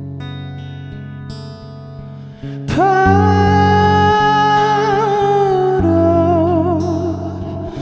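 Live song performance. Sustained guitar chords play alone at first; about three seconds in, a voice slides up into a long, loud wordless note with vibrato, then steps down to a lower note near the end.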